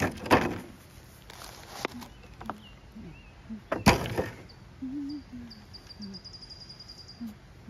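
Hands planting a seedling in loose garden soil: two sharp knocks, near the start and about four seconds in, with softer knocks and the rustle of soil between them as the plant is tipped out of a plastic nursery pot and patted in. A fast run of faint high ticks comes near the end.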